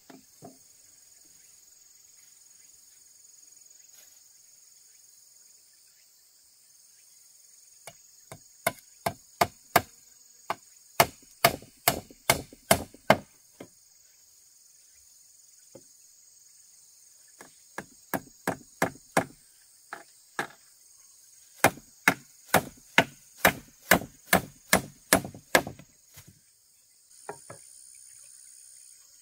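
Chopping at wood: sharp blows in three runs of about two to three a second, with short pauses between. Insects drone steadily and high-pitched underneath.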